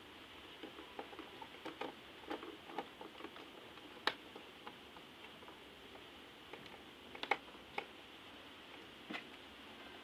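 Irregular small clicks and taps from handling a plastic bulb holder, its wires and a screwdriver. The sharpest click comes about four seconds in, with another pair a little past seven seconds.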